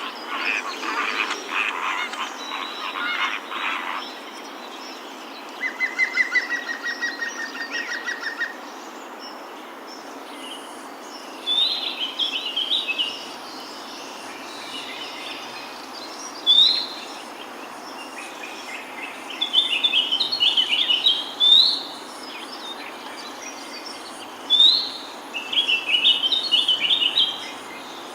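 Several wild songbirds singing: a burst of dense chattering at the start, then a rapid even trill of about a dozen notes, then one bird repeating a phrase every few seconds, a sharp rising note followed by a quick jumble of high notes.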